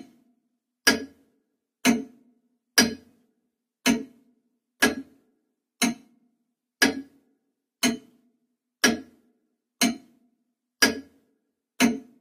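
A clock ticking about once a second, each tick short and sharp with silence between.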